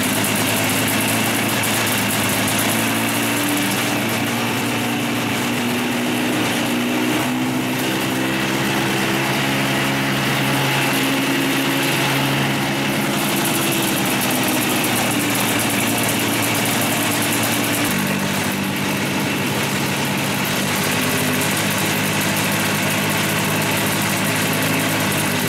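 Hirth 2706 two-stroke aircraft engine running on its very first start from cold, turning a two-blade IVO propeller. It runs steadily like a typical two-stroke with no odd popping, and its speed shifts slightly about 18 seconds in.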